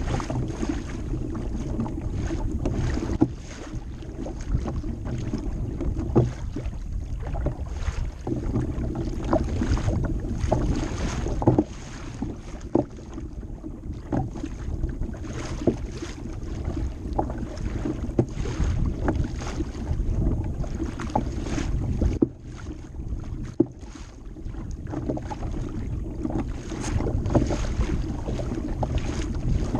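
Choppy water slapping against a moving kayak's hull in frequent sharp slaps, about one a second, over a steady rumble of wind on the microphone.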